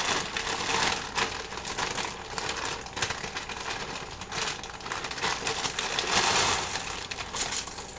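Dry egg noodles poured from a plastic bag into a steel pot: a dense clicking patter of noodles tumbling, with the bag crinkling, coming in a few spurts.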